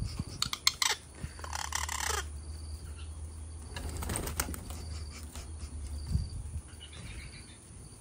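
A pet bird attacking a sock held up to it: a few sharp clicks in the first second, then rustling wing flaps and scuffling, with a flurry of flapping about four seconds in.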